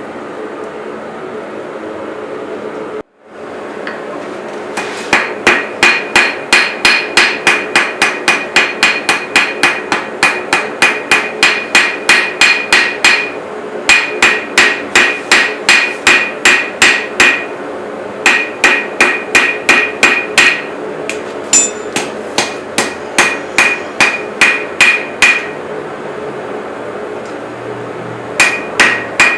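Hand hammer forging a steel knife blade on an anvil: runs of ringing blows at about three a second, broken by short pauses, over a steady hum. The blows start about five seconds in.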